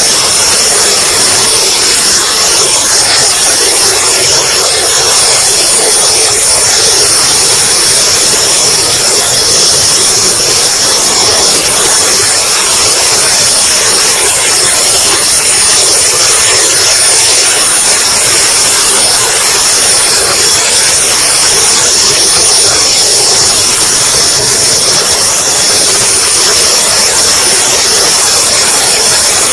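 RC jet's model turbine engine running steadily in flight, heard from a camera on the airframe: a loud, steady high-pitched whine over heavy wind rush.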